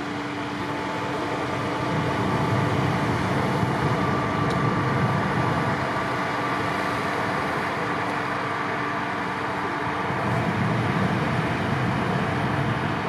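Hot air balloon inflator fans running steadily with a steady engine drone. A deeper rumbling swells twice, about two seconds in and again near the end.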